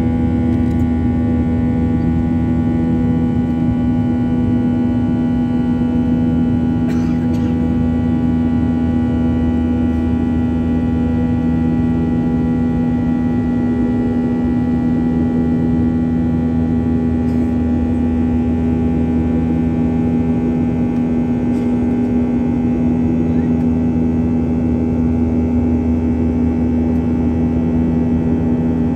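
Steady drone of a Boeing 737-800's CFM56-7B turbofan engines heard inside the passenger cabin during the climb after take-off: a strong low hum with several fainter steady tones above it over a rushing noise.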